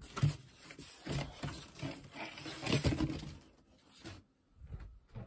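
Rustling and scraping handling noise close to the phone's microphone, uneven for about four seconds and then dying down near the end.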